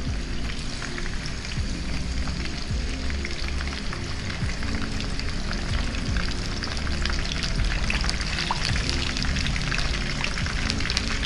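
Pieces of milkfish frying in hot oil in a pan: a dense sizzling crackle that grows busier in the second half, over background music.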